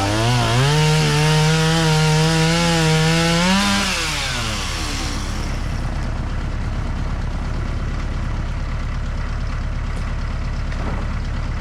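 Chainsaw running at high speed in a cut, its pitch dipping briefly under load. About four seconds in the throttle is released and it winds down to a low, steady idle.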